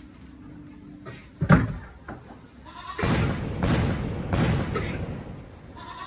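Goats at a feed trough on a slatted wooden floor: one loud knock about a second and a half in, then a few seconds of loud rough noise.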